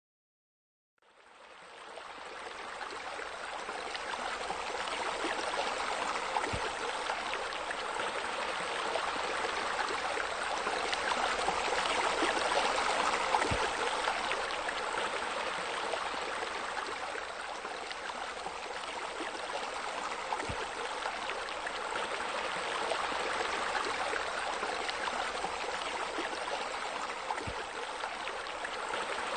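Steady rush of splashing, running water, like a small waterfall pouring into a pool, fading in about a second in. A faint low knock recurs about every seven seconds.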